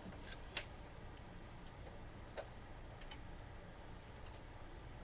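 A few sharp, scattered clicks of hard plastic printer parts and tools being handled while the printer's covers are taken apart: two close together near the start, one in the middle, and a louder one near the end.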